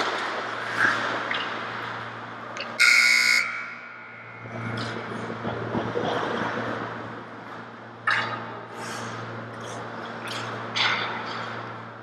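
A referee's whistle blows once, a short shrill blast about three seconds in, stopping play at the crease. Skate scrapes and stick clatter on the ice follow, over a steady arena hum.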